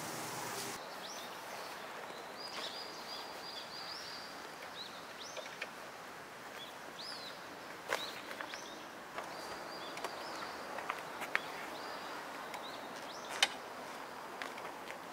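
Small birds chirping and twittering over steady faint outdoor background noise, with a few sharp clicks as straps are pulled over a duffel bag on a motorcycle luggage rack.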